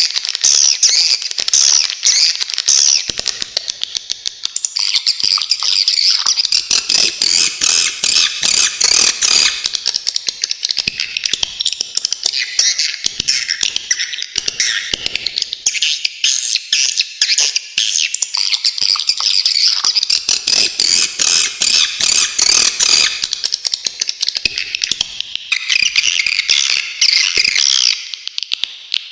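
Swiftlet calls: continuous high-pitched chattering made of rapid, sharp chirps and trills. The pattern changes abruptly about five seconds in and again near the end.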